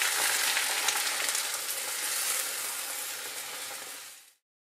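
Beaten egg and chopped garlic chives sizzling in hot oil in a frying pan as the egg is poured in. A dense, high frying hiss that eases off and fades out about four seconds in.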